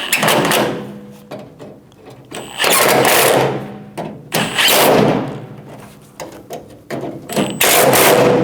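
Power driver running in four short bursts, spinning the door lock actuator's bolts into the van door.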